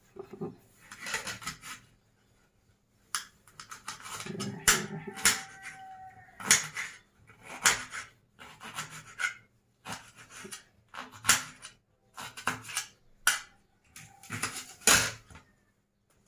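Kitchen knife slicing a green bell pepper on a plate, each cut ending in a sharp click of the blade against the plate, irregularly about once a second.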